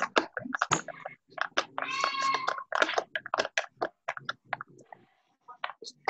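A person's voice imitating a cow's moo, one drawn-out call about two seconds in, among scattered short clicks and noises over the call line.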